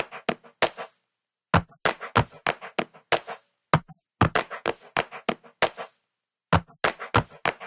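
A rapid series of sharp percussive knocks and thuds in short runs, a few hits a second, broken twice by stretches of dead silence.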